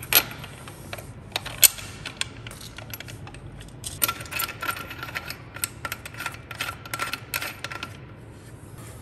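Metal tools and motorcycle parts clicking and clinking as they are handled, a few separate sharp clicks early, then a quick run of ringing metallic clicks for about four seconds from roughly four seconds in.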